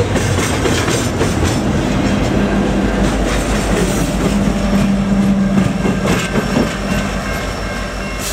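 Freight train rolling past: double-stack intermodal well cars clicking over the rail joints, then the rear distributed-power locomotive, a CN SD70M-2 diesel, passing close with a steady engine hum from about two seconds in.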